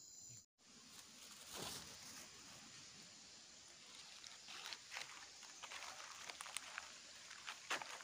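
Faint footsteps and rustling in dry leaf litter, with scattered light clicks that come more often in the second half.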